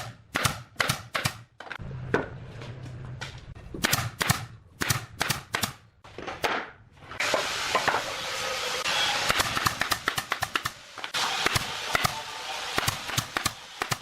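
Workshop noise on wood: a quick run of sharp knocks in clusters. About seven seconds in, a steady hiss from a power tool or air blower starts, and more knocks continue over it.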